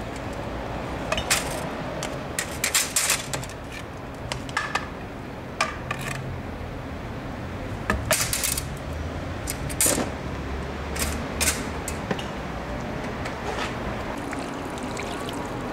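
Irregular metallic clinks and knocks, metal being tapped and rattled by hand in uneven clusters, over a steady low hum.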